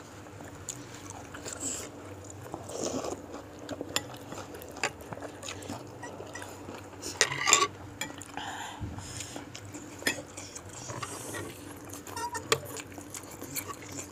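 Spoon and fork clinking and scraping against a soup bowl in short, irregular clicks, with a louder cluster of clinks about seven and a half seconds in.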